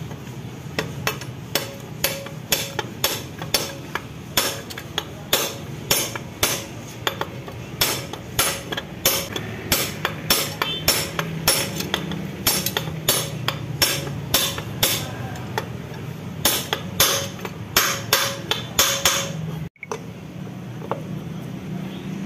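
Hammer blows on a steel drift held against a bearing in a Yamaha Mio M3 scooter's final-drive (gardan) gear case, driving the bearing during a bearing replacement. The metal-on-metal blows come about two a second with a short ring, and stop a little before the end.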